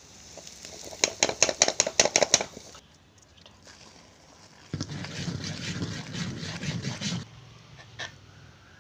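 A steel spoon knocks rapidly against a steel vessel, about ten quick knocks over a second and a half. A little later the spoon scrapes and stirs through thick batter for a couple of seconds, mixing in fried onions and curry leaves.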